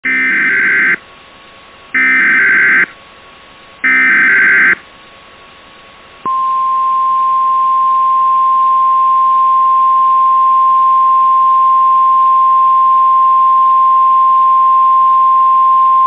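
Recreated Emergency Alert System / NOAA Weather Radio alert opening: three short, screechy SAME header data bursts about a second apart, then, after a short gap, the steady single-pitch 1050 Hz weather-radio warning alarm tone held for about ten seconds, which marks a warning-level alert. A faint hiss runs underneath, and the sound is cut off above the upper treble like a radio.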